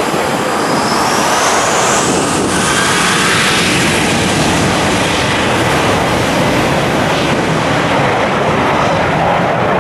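Boeing 737 jet engines spooling up to takeoff power: a whine rising in pitch over the first couple of seconds, then a loud, steady rush of jet blast as the airliner rolls away down the runway.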